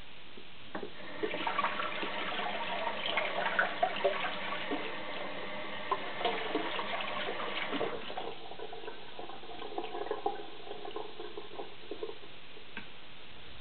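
Water running and splashing, starting about a second in, heaviest for the first seven seconds, then thinner until it stops near the end.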